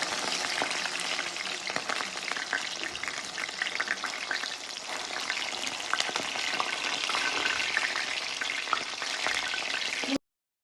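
Food frying in a pan: steady sizzling and crackling with stirring, which cuts off suddenly near the end.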